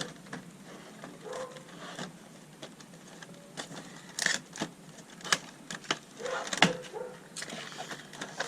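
A cardboard toy box and its plastic packaging being opened by hand, with irregular clicks, taps and rustles. A dog barks a few times in the background.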